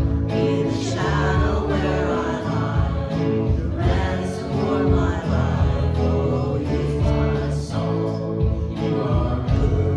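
Live contemporary worship band playing a song, with guitar, bass and congregational singing.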